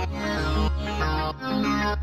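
Instrumental music: chords of held notes changing every fraction of a second over a deep, sustained bass.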